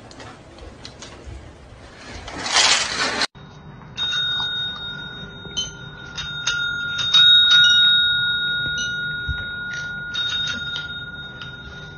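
Chrome service bells struck several times by cats' paws, each ding ringing on in a steady high tone. Before that, about the first three seconds, dry cat kibble rustles and shifts as a cat burrows through it, loudest just before a sudden cut.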